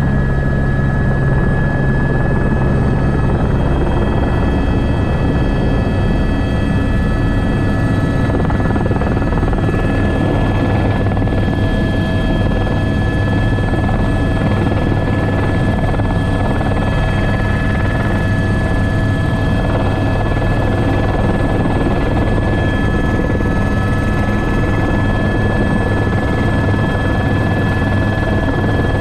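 Airbus H125 (AS350 B3) single-engine helicopter heard from inside the cockpit: steady turbine whine over the drone of the main rotor and gearbox. The low drone shifts slightly about three seconds in, then holds steady.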